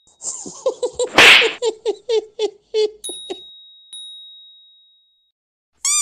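Added cartoon sound effects: a quick run of short squeaky cries, each dropping in pitch, with a loud sneeze-like burst about a second in. A bell ding then rings out and fades, and a short chirping burst comes near the end.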